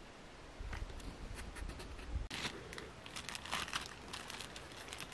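A plastic bag being handled, crinkling in a dense run of sharp crackles from about two seconds in. Before that there is a low rumble with a few light clicks.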